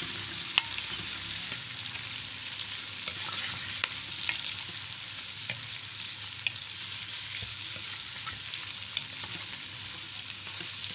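Freshly added sliced onions, capsicum and green chillies sizzling in hot oil in a metal pot, stirred with a spoon that scrapes and clicks against the pot now and then.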